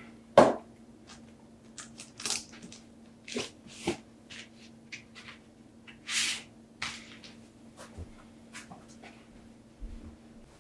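Cardboard vinyl record jackets being pulled from a shelf and handled: papery slides and rustles, with a sharp knock about half a second in and a longer slide around six seconds in. A faint steady hum runs underneath and stops near the end.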